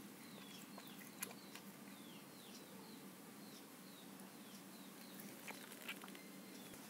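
Faint bird calls: a short chirp that slides downward in pitch, repeated about twice a second, with a few sharp clicks in between.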